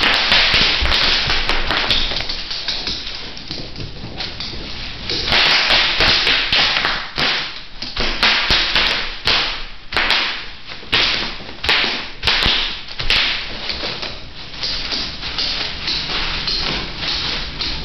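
Bubble wrap crinkling and popping as a boxer dog mouths and paws at it on a hardwood floor: rustling plastic with quick runs of sharp pops and snaps that come in spurts, the busiest stretch about five seconds in.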